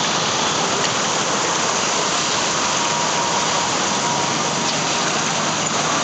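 Steady rushing of floodwater flowing across a street.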